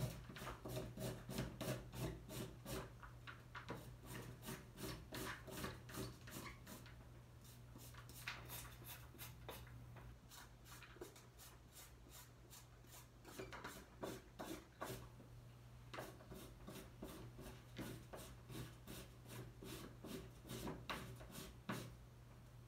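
A carrot being scraped with a blade: quick rasping strokes, several a second, in runs that stop and start, over a steady low hum.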